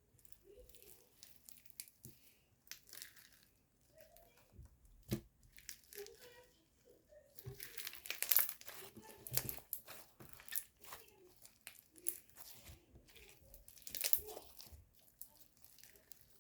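White crunchy slime being pressed and stretched by hand, giving off irregular crackling and popping, busiest and loudest a little past the middle and again near the end.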